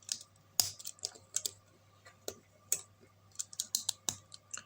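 Plastic LEGO pieces being handled and pressed together, making a run of sharp, irregular clicks and small clatters.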